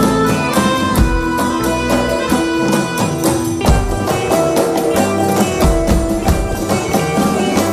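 Background music: an Indian traditional-style instrumental with a steady percussion beat.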